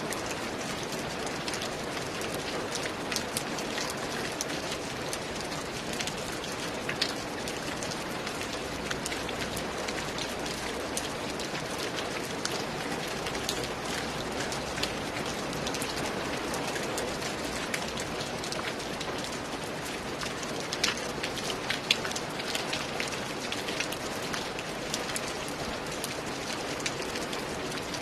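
Steady rain falling, with many individual drops ticking sharply against a hard surface; a few louder drop hits stand out about a quarter of the way in and again about three quarters of the way in.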